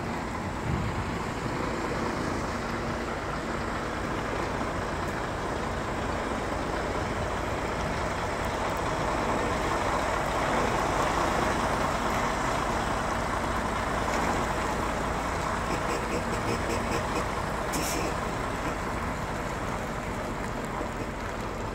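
Semi-truck engine running steadily as the tractor-trailer manoeuvres slowly at low speed, swelling a little in the middle. A short sharp hiss comes late on.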